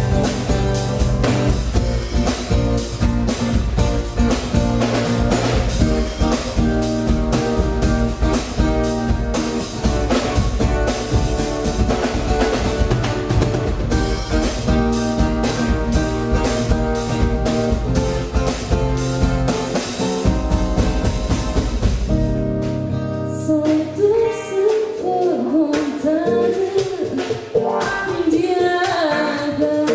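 Live band music with a drum kit playing a steady beat. About three-quarters of the way through, the drums and bass drop out and a wavering melodic line carries on over lighter backing.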